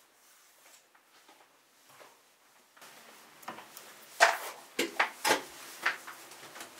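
A door being worked open in a quiet room: faint rustling, then a quick run of five or so sharp clicks and knocks from the latch and handle, the loudest a little after four seconds in.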